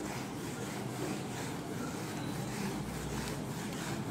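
A whiteboard duster rubbing marker ink off a whiteboard in repeated wiping strokes, over a steady low hum of room noise.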